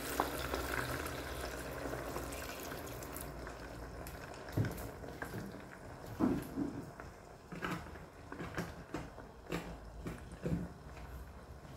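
Water poured from a plastic bottle into a pot of hot fried chicken and oil, sizzling and splashing, fading over the first few seconds. Then scattered pops and bubbling as the liquid heats.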